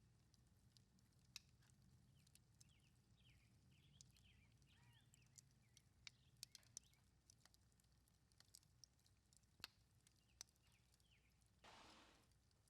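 Near silence: faint outdoor ambience with scattered sharp clicks, a few faint bird chirps a few seconds in, and a brief rustle near the end.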